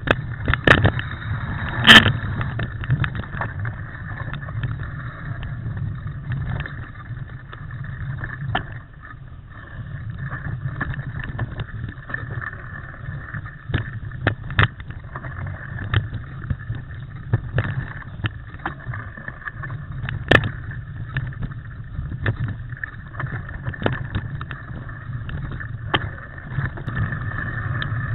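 Cannondale mountain bike ridden over a rough forest trail, picked up by an on-board camera: a steady rumble of tyres and wind on the microphone, broken by frequent sharp clicks and knocks as the bike jolts over bumps, the loudest about two seconds in.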